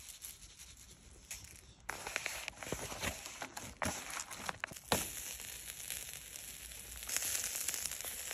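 Hands squishing and kneading raw ground meat into a patty, with short wet squelches and clicks. Then a steady hiss that grows louder near the end as the patty sizzles on the hot charcoal grill.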